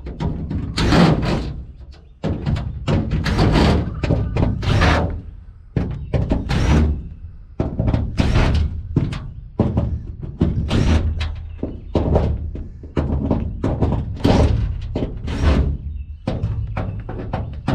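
A run of hard thunks and knocks, about one or two a second, over music with a steady bass.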